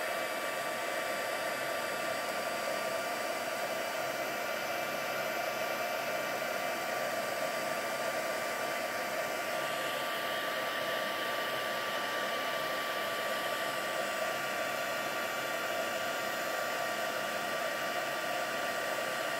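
Handheld embossing heat gun blowing hot air with a steady whine from its fan motor, melting embossing powder to set it on a stamped card.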